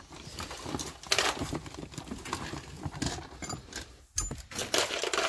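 Irregular knocks, rustling and light metallic clinks of ratchet tie-down straps and loose gear being picked up and moved in a car's rear cargo area, with a few brief jingles of the metal buckles about three and a half seconds in.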